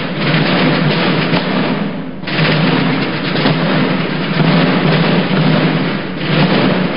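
Ceremonial military drums beating a continuous roll as an honour salute, with brief breaks about two seconds in and near the end.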